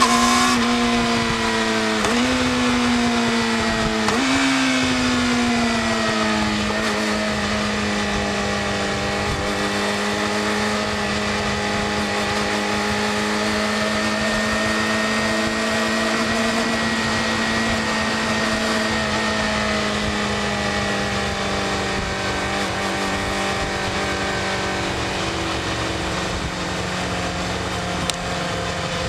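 Yamaha YZF-R6 inline-four running through its stock exhaust. The revs jump up and fall away twice in the first few seconds, then settle into a long, nearly steady high-revving drone that eases slowly lower.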